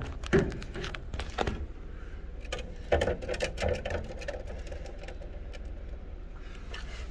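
Irregular clicks, taps and light knocks, the handling of a camera around the dryer's sheet-metal blower housing and exhaust duct. They are bunched in the first four seconds, and after that only a faint low hum remains.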